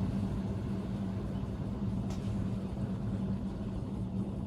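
Steady low hum with background rumble and hiss, no voices, and one faint click about two seconds in.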